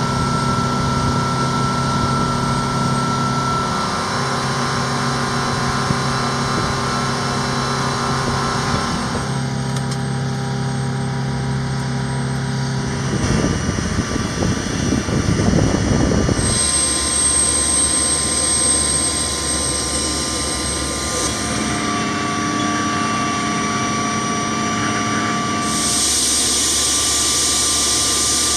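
HH-60 Pave Hawk helicopter running on the ground: a steady turbine whine and hum made of several fixed tones. The mix changes abruptly at several cuts between shots, and a high, thin whine comes in about halfway through.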